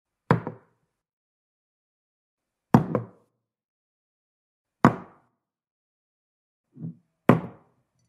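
A glass cup set down on a wooden table four times, about two seconds apart. Each set-down is a sharp knock with a quick second tap as the glass settles, and a softer, duller knock comes just before the last one.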